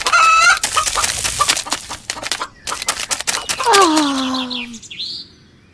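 Chicken clucking over quick sharp clicks like pecking at grain. About three and a half seconds in comes one drawn-out call that falls in pitch.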